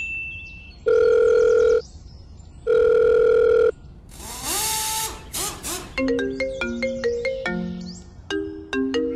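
Edited-in sound effects: a short high ding, then two long, identical electronic buzzer-like beeps of about a second each, then a loud rushing hiss with sliding tones. About six seconds in, a plucked, marimba-like ringtone melody starts.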